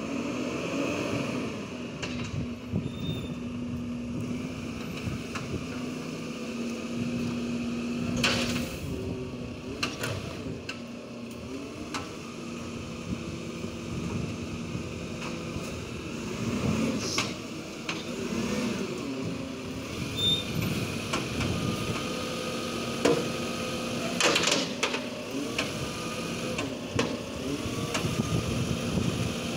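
Diesel engine of a side-loading garbage truck running as it creeps along the street and pulls up, with two brief hisses, one about a third of the way in and one near the end.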